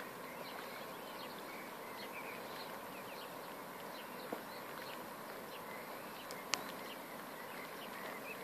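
Steady outdoor hiss with faint, scattered bird chirps, broken by two sharp clicks, the first about four seconds in and the second two seconds later.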